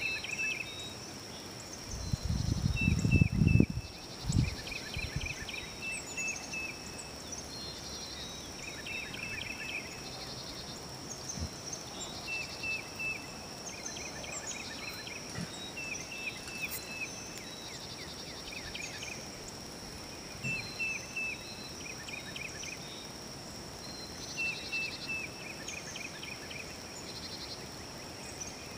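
Outdoor ambience: a steady high-pitched insect drone with short series of high chirps repeating every few seconds. A low rumble on the microphone about two to four seconds in is the loudest sound.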